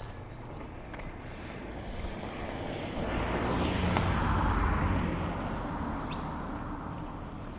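A vehicle passing by, growing louder to a peak about four seconds in and then fading away.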